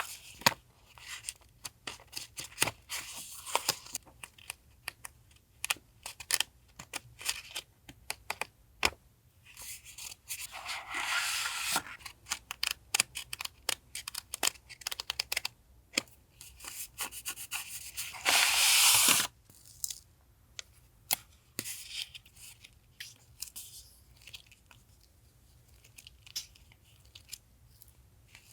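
Paper stationery being handled and unpacked: rustling, crinkling and small taps of paper sheets and packaging, with two longer tearing or sliding rasps, the second one, near two-thirds of the way in, the loudest.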